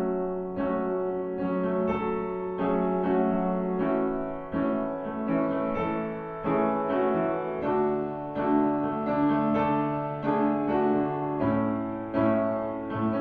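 Slow, gentle piano music, with notes or chords struck about every two-thirds of a second.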